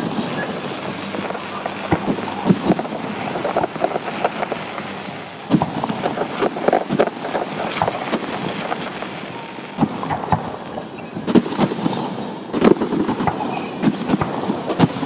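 Aerial fireworks bursting: a dense, continuous crackle with sharp booms scattered through it, the heaviest about five and a half seconds in and in a cluster near the end.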